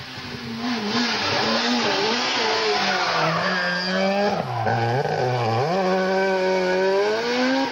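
A rally car's engine at high revs as the car comes up through a hairpin: the engine note dips twice about halfway through, then climbs steadily as it accelerates away, over a broad rush of tyre and road noise.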